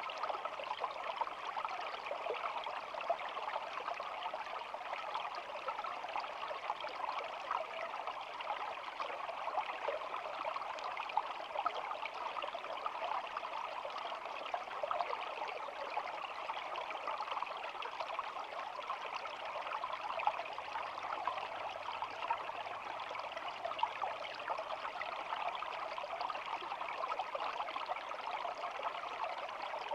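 Shallow stream flowing, a steady babbling and trickling of water.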